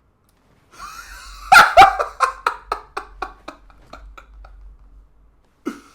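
A person laughing hard: two loud bursts, then a rapid run of 'ha' pulses about four a second that fades away over a few seconds, with a short low vocal sound near the end.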